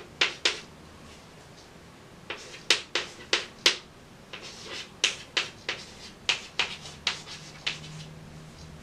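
Chalk tapping and scratching on a blackboard as figures are written: sharp little clicks in short runs, with brief pauses between.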